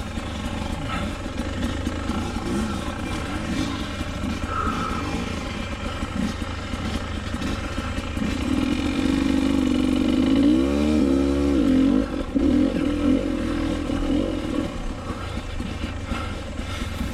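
300 dirt bike engine running under changing throttle on the trail, with a quick rev up and back down about ten seconds in.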